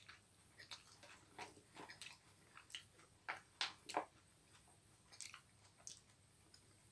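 A person chewing a mouthful of chicken and pasta salad: faint, irregular chewing with soft crunches, and a few sharper clicks about three to four seconds in.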